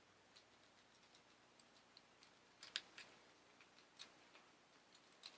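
Near silence with faint, scattered light clicks from handling, a few slightly louder about three seconds in, about four seconds in and near the end.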